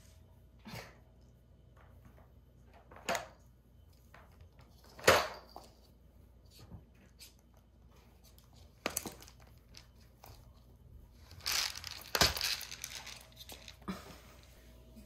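Parrots' beaks cracking and gnawing at pine nuts and their plastic container: single sharp cracks every couple of seconds, then a burst of crunching near the end.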